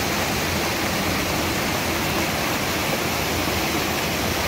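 Mountain creek water rushing and splashing in small cascades over granite slabs, a steady, even rush.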